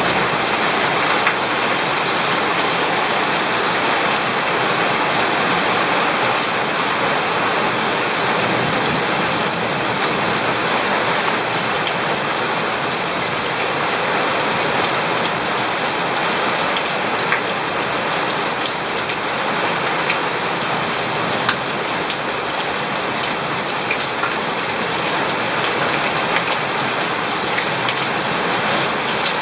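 Heavy rain falling steadily as an even hiss, with water pouring off a roof edge and scattered sharp taps of drops close by.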